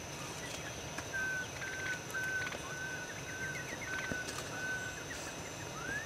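A series of about eight short whistles on one pitch, about two a second, then a rising whistle near the end, over a steady high insect drone.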